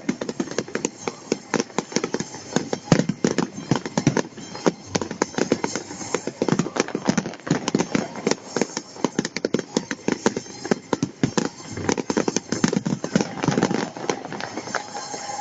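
Fireworks going off in a rapid, irregular run of bangs and crackles, several a second.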